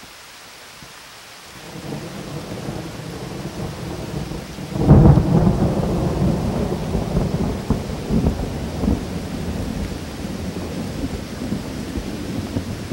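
Thunderstorm: a low rumble of thunder builds over steady rain about a second and a half in, breaks into a loud clap about five seconds in, then rolls on with a few smaller cracks.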